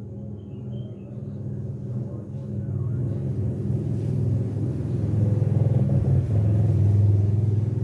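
Domestic cat purring close to the microphone, a low, rapidly pulsing rumble that grows louder over the last few seconds.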